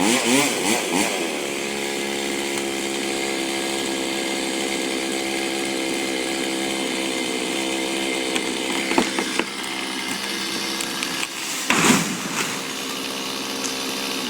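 A two-stroke chainsaw engine running. Its revs fall at the start, then it holds a steady pitch. A short, loud burst of noise cuts across it about twelve seconds in.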